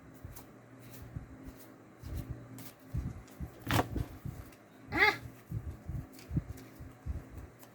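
Trading cards being handled and flipped through, with soft taps and rustles, and a short high-pitched vocal sound about five seconds in, the loudest thing heard.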